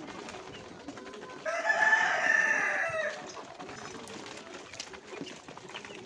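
A rooster crowing once: a single call of about a second and a half, starting about a second and a half in.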